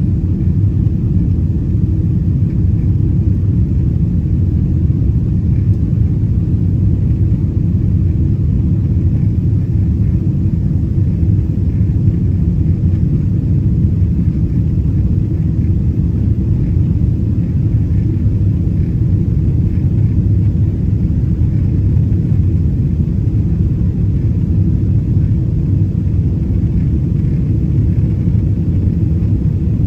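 Steady low rumble of in-flight cabin noise aboard a Boeing 777-200ER climbing after takeoff: its Rolls-Royce Trent engines and the airflow over the fuselage, heard through the cabin wall.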